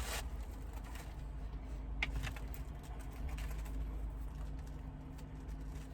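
Faint chewing of a bite of pizza, with a few soft crunches about two seconds in, over a low steady hum.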